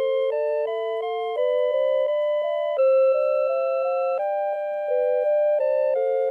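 Citizen CITE QHM3313-2 melody alarm clock playing one of its built-in electronic tunes: clean, steady synthesized notes in two-part harmony, mostly short notes with a few held longer.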